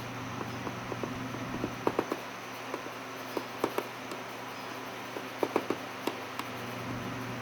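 Woodpecker pecking on a house: irregular sharp knocks, some in quick clusters of two or three, heard as banging inside the home.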